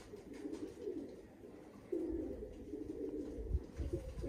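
Domestic pigeons cooing, phrase after phrase, a louder run of coos starting about halfway through, with a few low bumps near the end.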